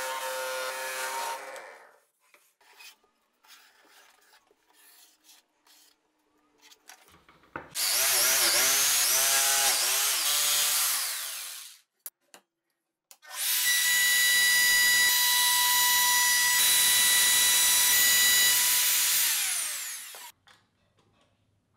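Woodworking power tools in quick succession. A drill press spins a sanding drum against a plywood edge at the start; a few seconds of quiet handling clicks follow, then a jigsaw cuts plywood for about three seconds. A second power tool runs steadily for about seven seconds, and its pitch falls as it winds down.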